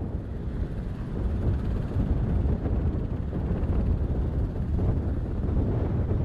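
Sikorsky CH-148 Cyclone helicopter running on the ground: a steady low rumble that builds slightly over the first couple of seconds.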